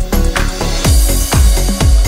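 Background electronic dance music with a steady kick-drum beat about twice a second; a rushing noise joins in the high end about a second in.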